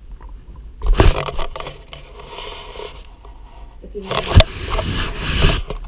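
Handling noise close to the microphone: scraping and rustling with a few sharp knocks, in two stretches, about a second in and again from about four seconds to near the end.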